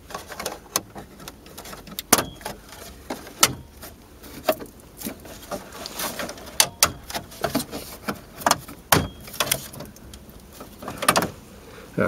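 Plastic dash trim panel of a 2000–05 Chevy Impala being pulled back by hand, giving a string of irregular clicks, snaps and knocks as its clips let go and the plastic is handled.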